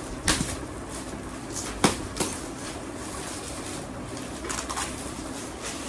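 Metallic gift-wrap paper rustling and crinkling as presents are unwrapped, with a few sharp crackles or knocks, the loudest about two seconds in.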